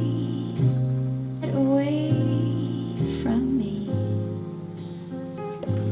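Lo-fi hip-hop beat playing: a sampled melody with sliding, bending notes that comes round about every second and a half, over held bass notes.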